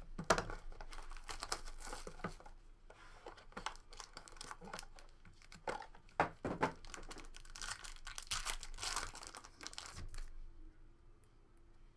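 Foil trading-card pack wrappers crinkling and tearing open as the cards are handled, a dense run of rustling and ripping that dies away near the end.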